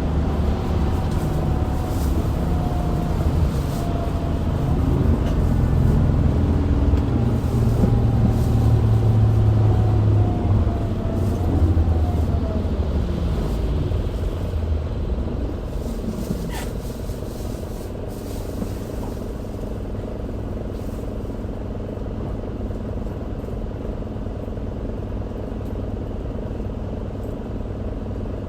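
Isuzu Erga city bus diesel engine running under way, heard from inside the bus: it pulls with a rising pitch and grows louder through the first half, then eases to a quieter, steady rumble after about eighteen seconds.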